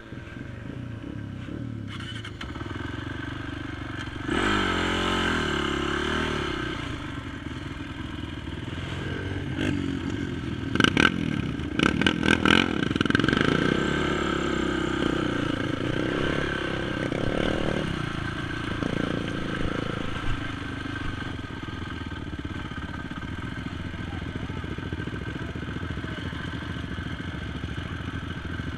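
Honda TRX450 ATV's single-cylinder four-stroke engine running and revving as the quad is ridden over a dirt trail, with a quick cluster of sharp clattering knocks about eleven to thirteen seconds in. It settles to a steadier, lower running in the last several seconds as the quad slows to a stop.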